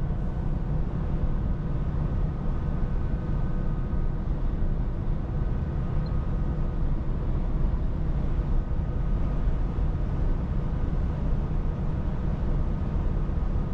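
Inside the cab of a Scania S450 truck driving along: a steady low drone of engine and road noise with a faint steady whine above it, unchanging throughout.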